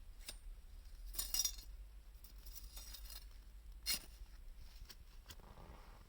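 Wood fire crackling, with sharp pops and snaps: a quick cluster about a second in and one loud snap near four seconds in, among smaller ticks.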